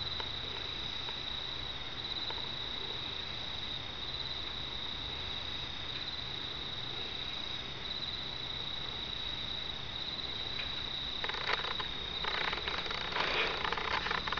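Night insects, likely crickets, chirring in one steady high-pitched tone, over a faint low hum. Near the end come a few bursts of rustling noise.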